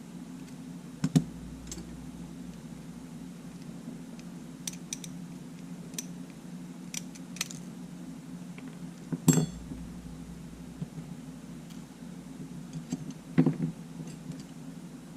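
Small tools and camera parts clicking and clinking against a hard bench during camera disassembly: three sharper knocks, about a second in, near the middle and near the end, with faint ticks between, over a steady low hum.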